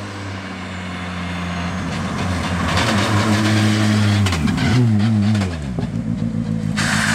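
Skoda Fabia R5 rally car's turbocharged 1.6-litre four-cylinder engine at high revs, getting louder as the car approaches at speed, with sharp crackles as it passes close by. The engine note falls steeply twice, then the sound drops away as the car moves off.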